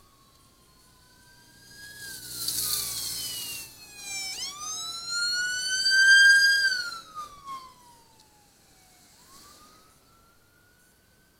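Sirens of escort motorcycles wailing, several overlapping rising-then-falling wails, the loudest one passing close about four to seven seconds in. A motor vehicle rushes past about two to three and a half seconds in.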